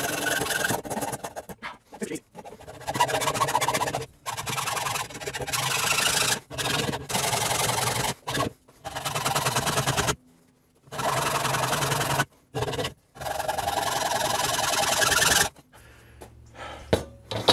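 Hacksaw cutting through a Michelin motorcycle tyre: a series of rasping sawing strokes, each a second or two long with short pauses between, ending near the end as the cut goes through.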